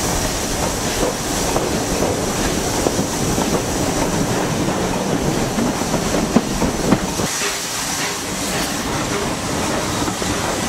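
Steam-hauled passenger train running on the track, heard from a carriage window: a steady rumble with wheels clattering over rail joints and a couple of sharp clicks about six and seven seconds in. After about seven seconds the low rumble drops away as the train runs into the station.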